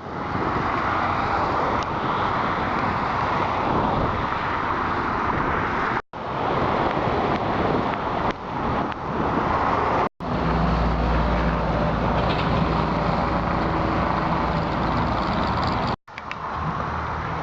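Car and road noise in a few short clips cut together, with brief silent gaps between them. In the third clip a steady low engine hum stands out.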